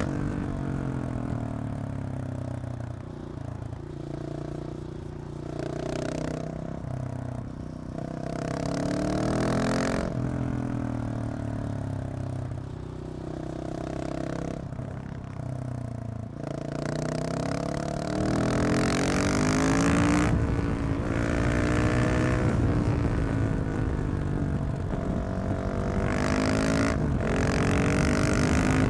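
KTM 690 SMC R's single-cylinder engine through a LeoVince exhaust with the catalytic converter removed, revving up through the gears and dropping back on the throttle again and again while riding. It gets louder and harder in the second half.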